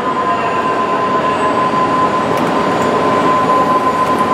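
Milltronics CNC lathe running a thread repair pass, with the spindle turning slowly and the threading tool following the existing thread. It makes a steady mechanical noise with a constant high-pitched whine.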